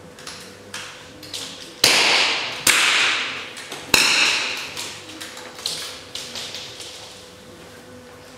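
Three loud smallbore target-rifle shots in quick succession, about two, three and four seconds in, each with a long echoing tail in the range hall, followed by a few fainter shots and clicks from farther along the firing line.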